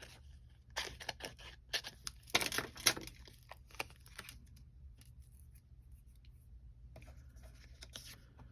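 Crisp clicks and rustles of paper crafting: a punched cardstock cloud and its foam adhesive dimensionals being handled and peeled, busiest in the first three seconds and then only a few faint clicks.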